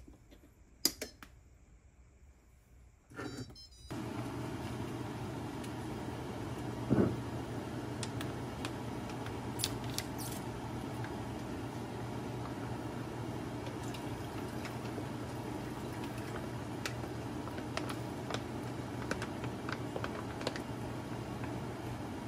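A steady kitchen fan hum starts suddenly about four seconds in and runs on. Over it come a sharp knock about seven seconds in and scattered light clicks and rustles as a soup pouch is handled over an earthenware pot.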